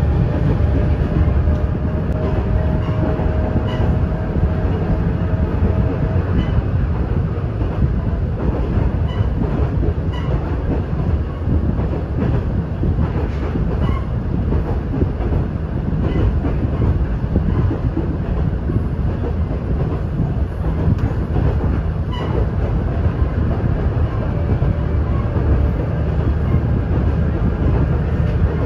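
Steady ride noise inside a moving diesel railcar: a low rumble of the engine and wheels on the rails, with scattered faint clicks from the track.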